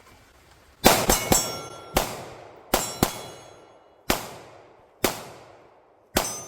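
Pistol shots fired at steel targets, each followed by the clang and ringing of the struck steel plate. A fast group of three comes about a second in, then single shots follow roughly a second apart, with the last one near the end.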